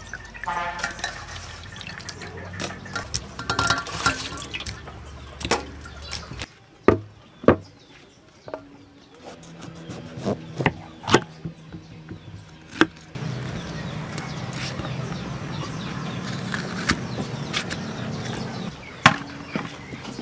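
Water splashing and clinking as hands wash food in a stainless steel bowl, followed by a knife cutting bell peppers on a wooden chopping board: several sharp separate knocks of the blade striking the board.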